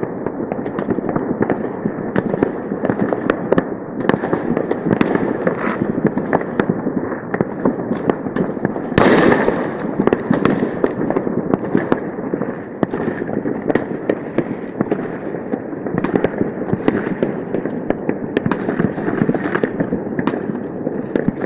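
New Year fireworks going off across a city: a continuous rattle of many overlapping bangs and pops that doesn't let up, with one louder burst about nine seconds in.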